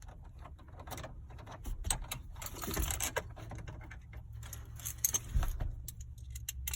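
Irregular clicks, taps and rattles of hand tools and loose metal and plastic parts while the 7mm bolts and trim around a GM truck's instrument cluster are worked loose, busiest about two to three seconds in and again about five seconds in.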